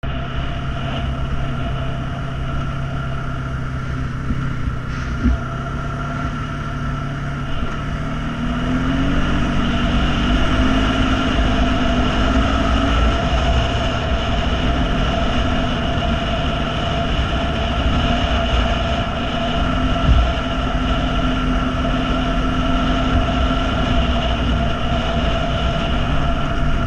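ATV engine running under way, its pitch rising about eight seconds in as it speeds up and then holding steady, over a low rumble. Two short thumps stand out, one about five seconds in and a louder one about twenty seconds in.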